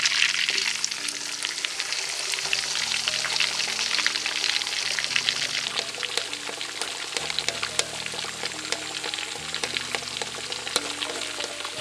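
Whole red mullet deep-frying in hot coconut oil in a metal wok: steady sizzling with dense crackling spatter, loudest just at the start.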